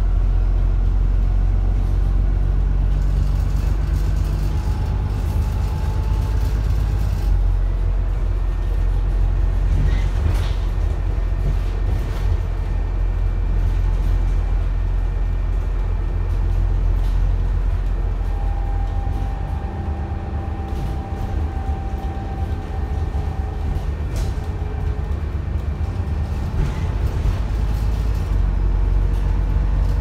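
Alexander Dennis Enviro400 double-decker bus on the E40D chassis driving, heard from inside the upper deck: a steady low diesel engine rumble with a turbocharger whine above it that shifts in pitch and rises near the end.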